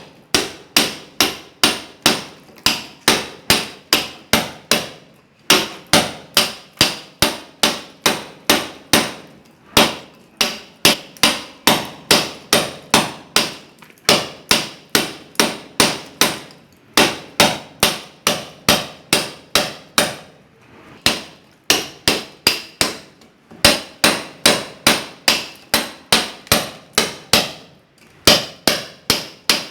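A club hammer striking a steel cold chisel to cut into a masonry wall, with sharp ringing metal-on-metal blows at about three a second. The blows come in runs of several seconds, broken by brief pauses.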